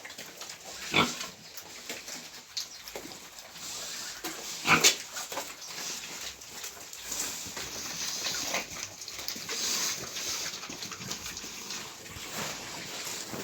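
Pigs grunting and calling, with two short loud calls about a second in and just before five seconds.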